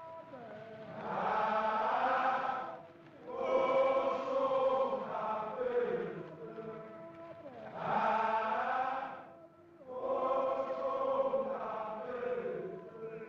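Background music of voices chanting together in long sung phrases, each lasting a few seconds with short breaks between.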